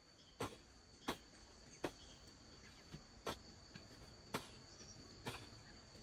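About seven sharp knocks or strikes, roughly one a second at an uneven pace, over a steady high-pitched insect drone.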